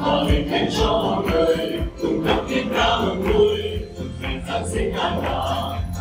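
Mixed male and female group of singers on microphones singing a Vietnamese Christian Christmas song together, over a live band of guitars, drum kit and keyboard keeping a steady beat.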